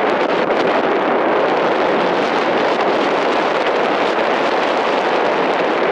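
Steady rushing wind over the microphone ahead of an approaching severe thunderstorm's shelf cloud.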